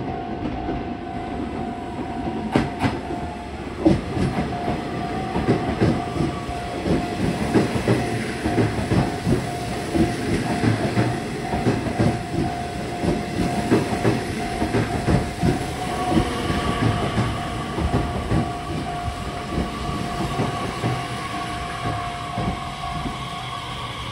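Nishitetsu 3000 series six-car electric train pulling into the platform and slowing: its wheels clatter over the rail joints in rapid knocks. A higher whine joins about two-thirds of the way in as it brakes, and a steady tone underneath stops near the end.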